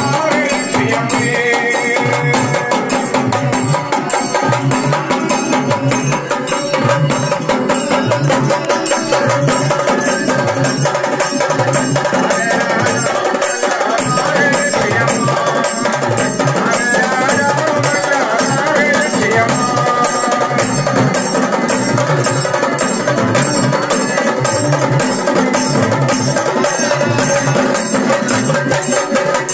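Traditional ritual music accompanying a Kerala serpent dance (sarpam thullal): fast, steady percussion with drumming and a rapid clicking beat, with a melody line over it.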